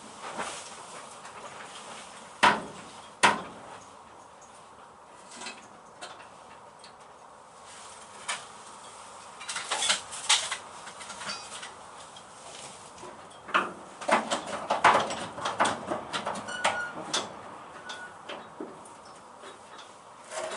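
Workshop clatter: sharp metal knocks and clanks as tools and clamps are handled on a car's steel bodywork while a panel is clamped up. Two loud knocks come a little under a second apart early on, then busier bursts of clattering later, with a couple of short squeaks near the end.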